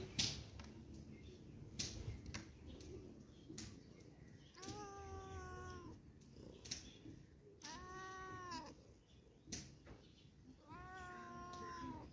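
A cat meowing three times, each meow drawn out for about a second, a few seconds apart. A few short sharp clicks come in between, the loudest about the start.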